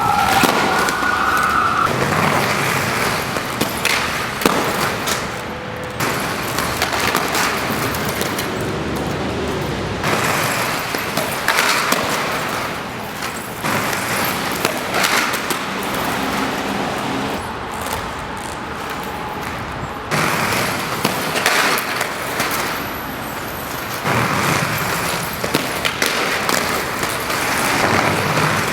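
Aggressive inline skates rolling over rough, gritty pavement and sliding along a waxed ledge, in several short attempts one after another.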